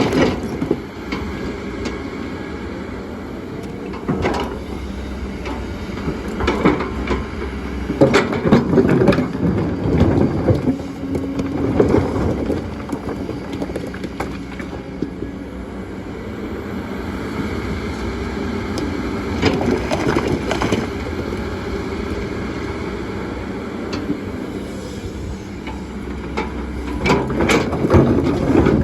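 Kobelco excavator's diesel engine running steadily under load, with irregular knocks and scrapes from stones being moved by the bucket, loudest in a cluster near the end.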